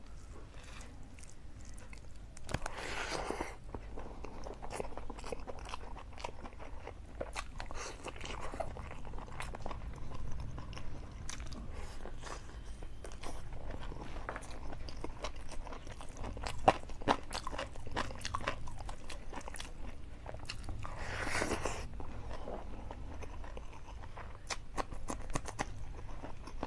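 A man chewing and biting mouthfuls of food close to the microphone: wet chewing with many small clicks and crunches, and two louder stretches of noise, one a few seconds in and one about four-fifths of the way through.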